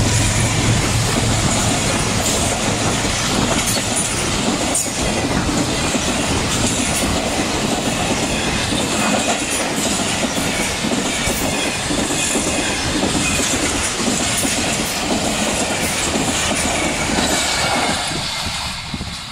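Pakistan Railways express passenger coaches passing close by at speed, a loud steady rumble with the wheels clattering over rail joints. The sound grows fainter near the end as the tail of the train draws away.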